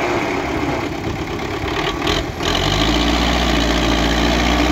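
Belarus MTZ tractor's diesel engine running. Just after halfway, following a brief break, it settles into a steady, deep idle.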